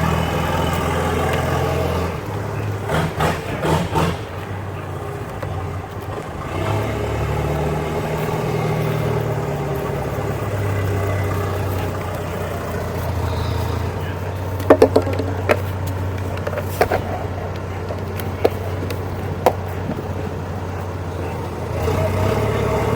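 A motor vehicle engine running steadily, its pitch rising and falling once as it revs early on, with several sharp clicks or knocks a little past the middle.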